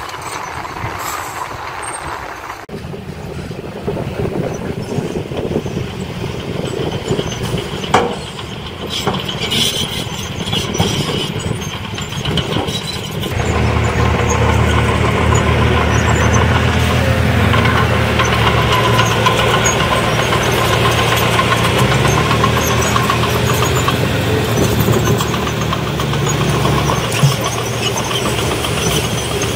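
Diesel dump truck engine running. About halfway through it steps up to a louder, steady higher-revving drone as the hydraulic hoist lifts the loaded bed to tip soil. A single sharp knock comes about a third of the way in.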